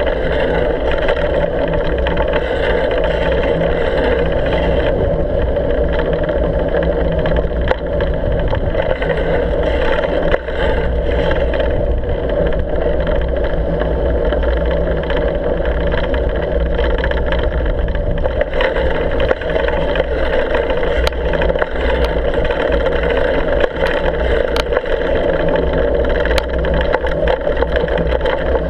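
Steady engine-like drone of the vehicle being ridden along a snow-covered road, heard from a camera on its handlebars, holding an even pace with a few light clicks.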